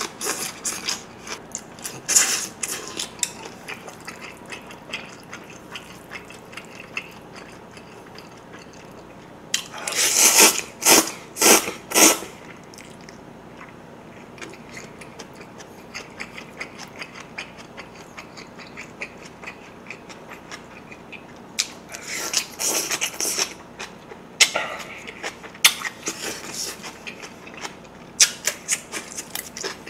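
Close-miked eating: a person chewing spicy mixed noodles with young radish kimchi in small wet clicks, broken a few times by bursts of loud noodle slurping.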